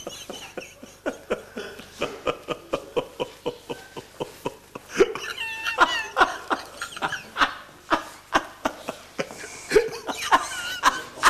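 People breaking into fits of laughter, in short rapid bursts that grow louder about five seconds in.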